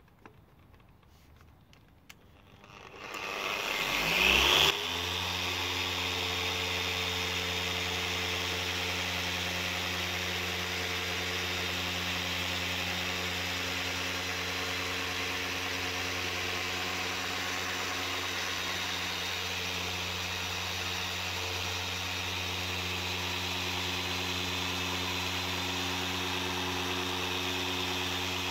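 A handheld machine polisher spinning up about three seconds in with a rising whine, then running steadily with a low hum while it buffs a sanded headlight lens. This is the coarse-polish stage, which takes out the heavy sanding marks.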